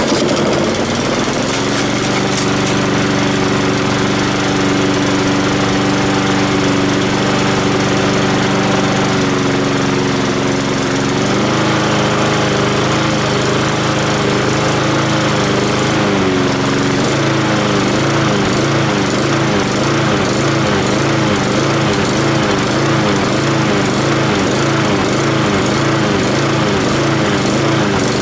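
Honda four-stroke lawn mower engine catching right away and running, its speed shifting a few times; in the last third its pitch wavers unevenly instead of holding steady. The owner takes the uneven running for a fueling problem.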